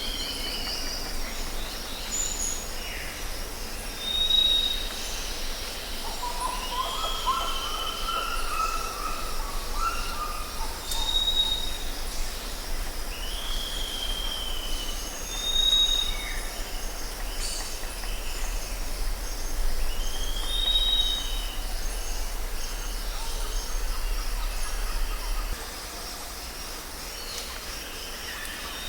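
Birds calling outdoors: short whistled notes repeat every few seconds, with a lower warbling call about seven seconds in. Under them runs a steady faint high hiss and a low rumble that drops away near the end.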